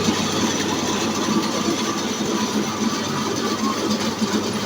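Horizontal band sawmill driven by a 5.5 HP electric motor, running steadily with its blade cutting through a mahogany log.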